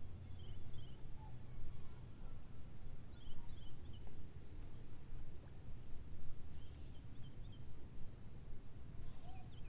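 Small birds chirping, short high chirps repeating about once a second with some lower falling double chirps, over a steady low rumble.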